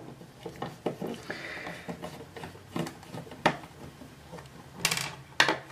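Small clicks and taps of a screwdriver in a case screw and fingers handling the plastic housing of a PoE injector as it is unscrewed and pried open. A few sharper clicks come about three and a half seconds in and again near the end.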